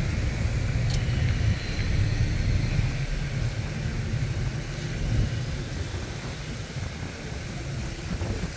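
A car's road noise heard from inside the moving car: a steady low rumble.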